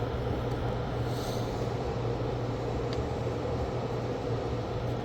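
Steady hum of a small electric blower running on an electronics repair bench, with a faint brief hiss about a second in.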